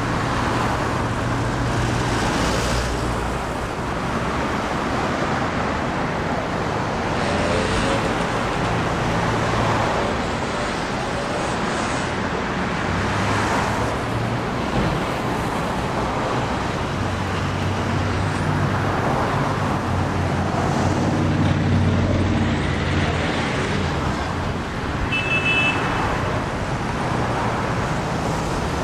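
A steady rumble of background noise with a low hum that shifts slightly in pitch, swelling and easing every few seconds, and a brief high chirp about three-quarters of the way through.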